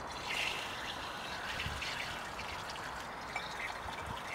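Water running from an outdoor hose bib into a drinking glass, a steady splashing flow.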